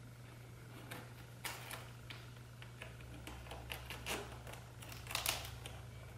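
Hands handling a stack of corrugated cardboard strips and packing tape: scattered short rustles and scrapes, with a longer one about five seconds in, over a steady low hum.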